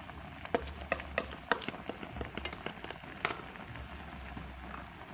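Pan of palm sugar syrup with cassava pieces at a hard boil: a steady bubbling hiss with sharp pops and crackles of bursting bubbles, the pops bunched in the first three seconds or so.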